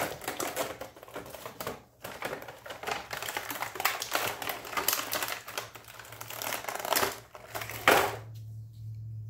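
Stiff clear plastic blister packaging from an action figure crackling and clicking as it is handled and flexed, with a sharper crack near the end as a piece is pulled free of the tray.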